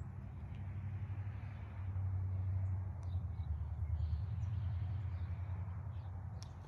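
Low, fluctuating rumble of moving air buffeting the microphone, swelling about two seconds in, with a few faint high ticks.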